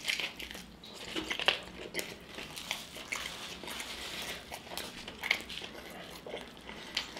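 A person chewing and eating close to the microphone: irregular wet mouth clicks and small crunches.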